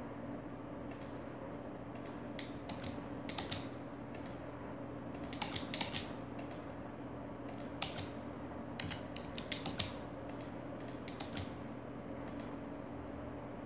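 Computer keyboard keystrokes and mouse clicks in short irregular clusters, over a faint steady low hum.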